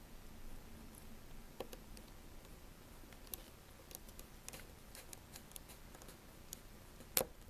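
Faint, scattered small clicks and ticks of tools and tiny parts being handled during smartphone reassembly, with two sharper clicks near the end.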